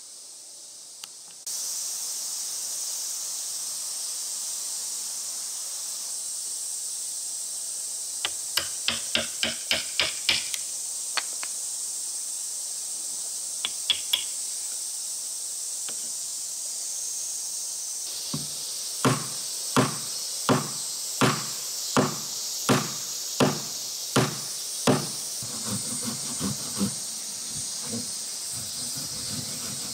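Mallet blows driving a wood chisel into a thick slab of natural wood to cut a mortise: a quick run of about eight light taps, a pair of strikes, then a slower series of heavier blows a little over one a second, followed by lighter taps. A steady high hiss runs behind throughout.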